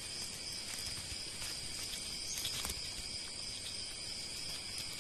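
Steady chorus of insects: an even, high-pitched hiss, with a few faint clicks.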